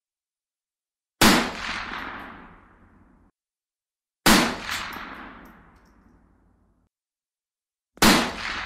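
Three single gunshots about three seconds apart, each a sharp crack that dies away in a long echoing tail of about two seconds.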